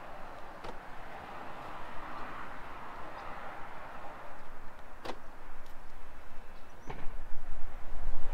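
Renault Megane E-Tech being unlocked with its key card: a few short, sharp clicks from the car over a steady outdoor hiss. A low rumble comes in about seven seconds in.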